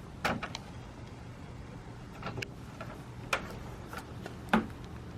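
A few scattered sharp clicks and knocks, about four over five seconds, from hand tools and parts being handled while working on a car's engine, over a low steady hum.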